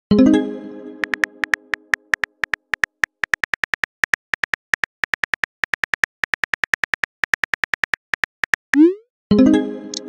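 Phone-app keyboard typing clicks, quick and even with short pauses, as a text message is typed out. A pitched chime fades at the start, and near the end a rising swoosh and the same chime mark the message being sent.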